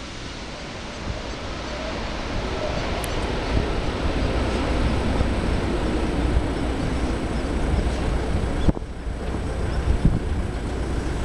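Boeing 767-300 jet engines on final approach: rushing engine noise that grows louder over the first few seconds and then holds steady, with wind on the microphone. The sound breaks off abruptly about nine seconds in and resumes, and a few sharp knocks come near the end.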